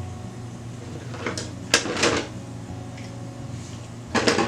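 Parts of a meat grinder attachment clattering and knocking as it is taken apart for cleaning: a short clatter about a second in, a double one around two seconds, and another near the end.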